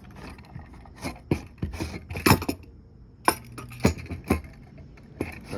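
Sharp clinks and knocks of metal tools and engine parts being handled, about seven separate strikes, the loudest cluster about two seconds in.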